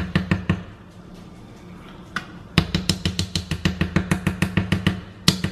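A plastic fork whisking gravy in a saucepan, clicking quickly and evenly against the pan, about six strikes a second. It pauses for about two seconds near the start, then resumes.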